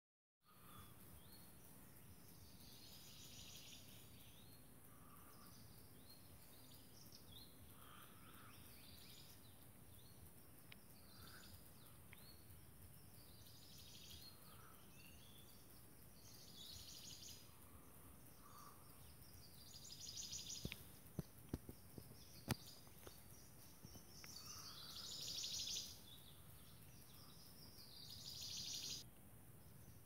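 Faint forest ambience: high, rapidly pulsed chirping calls from wildlife repeat every few seconds, some swelling in loudness and cutting off sharply, with shorter, lower calls in between. A few sharp clicks come about two-thirds of the way through.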